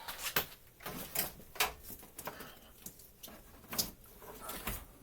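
A work light being carried and set in place: a run of irregular clicks, knocks and light rattles, with the sharpest knocks near the middle and just before the end.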